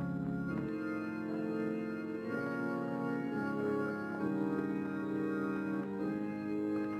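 Funeral organ music: an organ playing slow, sustained chords that change every second or so, with a slight waver in the tone.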